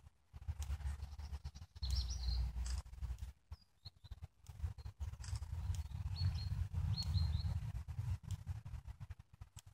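Small songbirds chirping in short high calls, several of them between about two and seven and a half seconds in, over an uneven low rumble that comes and goes.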